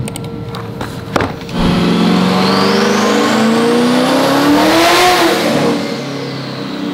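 Twin-turbocharged C8 Corvette's V8 pulling up through the revs, its pitch climbing steadily for about three and a half seconds with a rising turbo whine above it, then falling away as it comes off. A sharp click about a second in comes before the engine sound.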